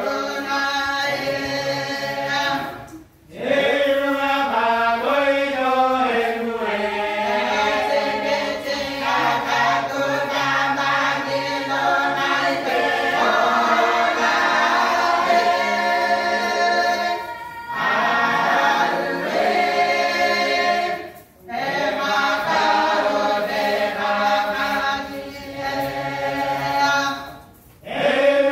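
A choir singing a cappella in several voice parts, with short breaks between phrases about three seconds in, about 21 seconds in and near the end.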